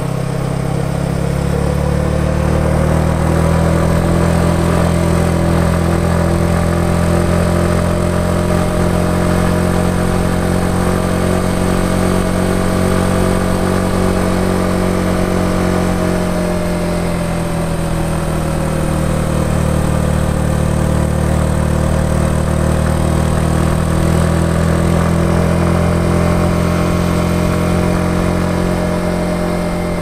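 Yamaha XSR 155's single-cylinder engine and exhaust running steadily while the motorcycle cruises along, the engine note easing off a little past halfway and picking up again.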